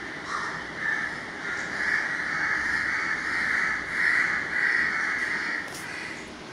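Repeated cawing bird calls in overlapping bursts, with a single sharp click about six seconds in.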